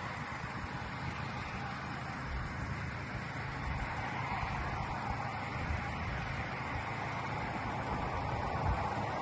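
Steady low rumble with an even hiss over it, slowly growing a little louder, like a vehicle running.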